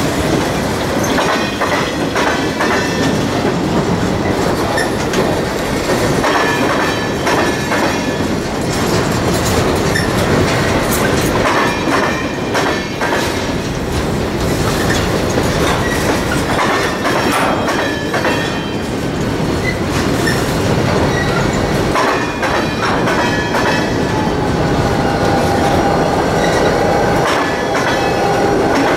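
Freight train of covered hopper cars rolling across a steel girder railroad bridge. The wheels clack steadily over the rail joints, and wheel squeal rings over the rumble in the last few seconds.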